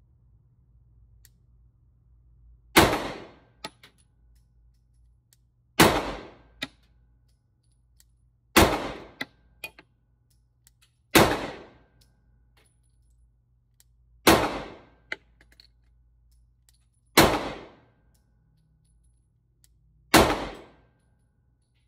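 Seven pistol shots from a Glock 43X 9mm, fired slowly at about one every three seconds, each ringing out briefly in an indoor range lane. Faint clicks follow between some of the shots.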